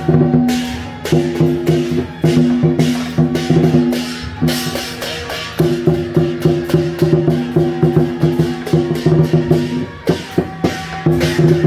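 Taiwanese temple-procession music: percussion struck in a fast, steady beat over held low tones.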